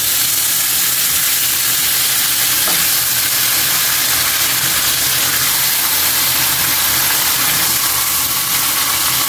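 Raw chicken leg quarters sizzling steadily in hot oil in a wok, being seared before grilling.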